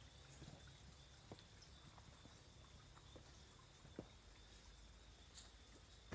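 Near silence with a few faint, scattered clicks and taps, from someone moving on foot through forest undergrowth with the phone.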